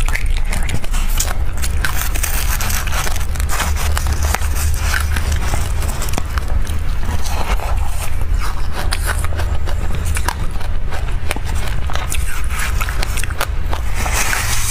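Close-miked chewing and crunching of a mouthful of black sesame seeds, a dense run of small crackling clicks.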